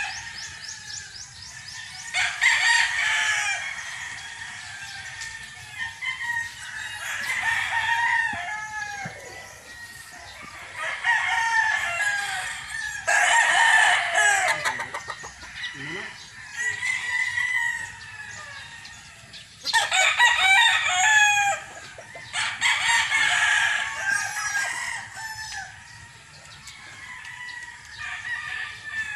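Gamefowl roosters crowing again and again, a loud crow every three to five seconds, with quieter calls between.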